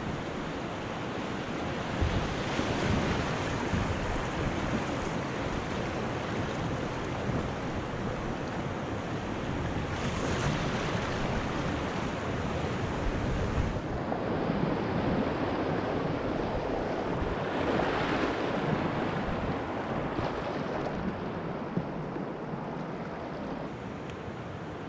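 River rapids rushing loudly around a kayak as it runs through shallow whitewater riffles, a steady roar of churning water that eases a little near the end as the water calms.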